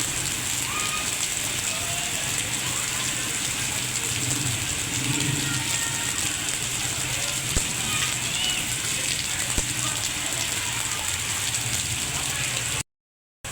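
Steady rain falling, with two sharp knocks about two seconds apart midway through; the sound drops out completely for a moment near the end.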